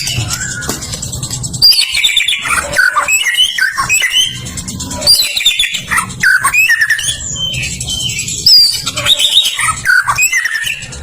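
Caged songbirds singing: a rapid, varied run of whistles, chirps and sliding notes with hardly a pause, over a steady low hum.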